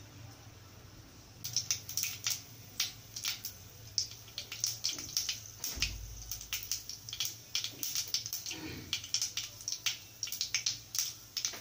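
Mustard seeds popping and crackling in hot oil in a kadai. The pops start about a second and a half in and go on thick and irregular, a sign the oil is hot enough for tempering.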